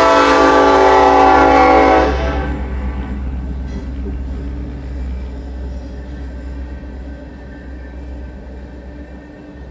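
BNSF EMD diesel locomotive's air horn sounding one loud blast of about two seconds as the locomotive reaches the grade crossing, then cutting off. After it, the steady noise of the coal train's cars rolling past, slowly fading, heard from inside a car.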